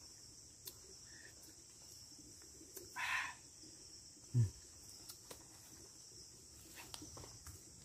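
Insects singing in a steady, high-pitched drone, with a short noise about three seconds in and a low thump about a second and a half later.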